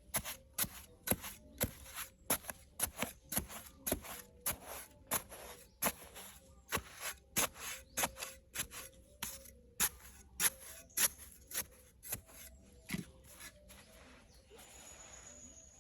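Quick repeated cutting or scraping strokes, about three a second, that thin out near the end into a soft hiss.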